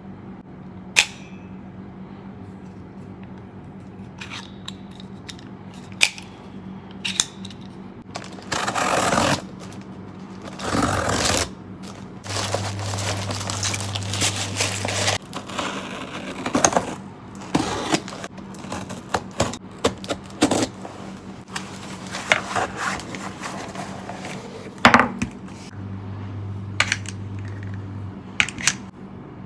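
Objects being handled: scattered sharp clicks and taps and longer scraping, rustling passages, over a steady low hum. A louder low hum comes in twice, for about three seconds and then for about two.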